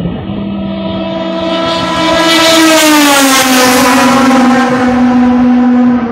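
Turismo Nacional Class 2 race car passing at speed, its engine note growing louder, then dropping in pitch as it goes by about three seconds in.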